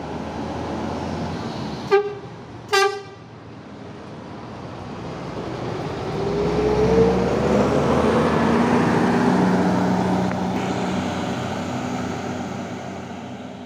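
Intercity coach's horn giving two short toots, then its diesel engine growing louder as the bus drives past and fading as it pulls away.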